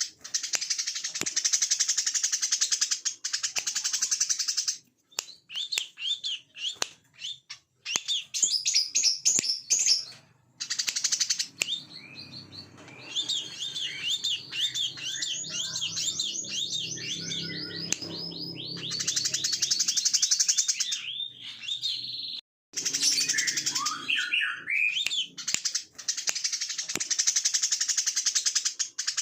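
Brown-throated sunbird (kolibri kelapa) singing a fast, continuous chattering song: rapid high trills and sharp chirps in bursts of a few seconds, separated by short pauses.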